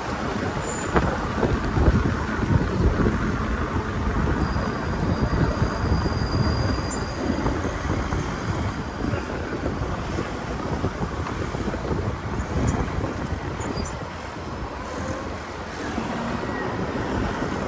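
Wind rushing over the microphone and road noise while riding a bicycle, a low, uneven rumble that swells and eases. A faint thin whine sounds from about four to nine seconds in.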